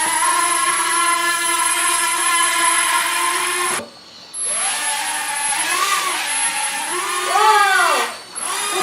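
Electronic spaceship sound effects from an Air Hogs Millennium Falcon toy drone's speaker: a steady engine-like whine that cuts off about four seconds in, then comes back with swooping, warbling pitch.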